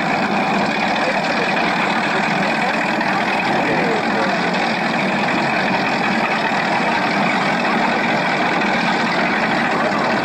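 Speedboat's engines idling steadily, an even, unbroken noise.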